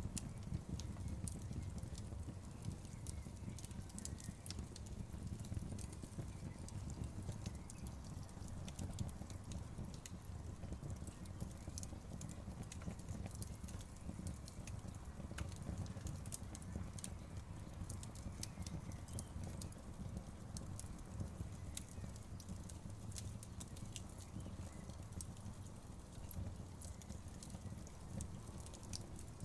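Fire crackling, with frequent irregular sharp pops and snaps over a steady low rumble.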